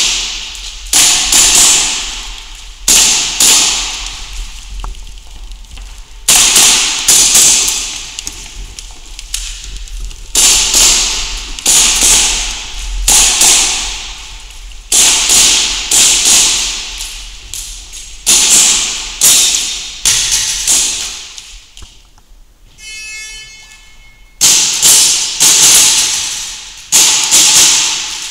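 Gas blowback airsoft pistols firing in a large hall: sharp shots in quick pairs and short strings, each ringing briefly in the room. First a Tokyo Marui Hi-Capa 5.1 Custom fires; about three-quarters through, an electronic shot-timer beep sounds for about a second, then a KWA USP Match opens fire.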